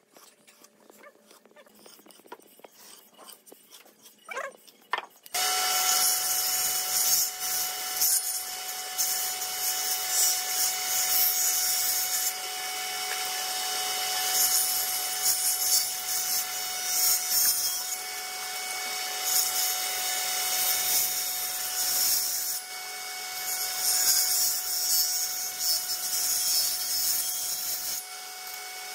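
Faint clicks and taps for about five seconds, then a table saw on a combination woodworking machine cuts in suddenly. Its blade runs with a steady whine and a loud hiss as a wooden board is fed through to cut its corners off at an angle, the sound swelling and easing with each pass.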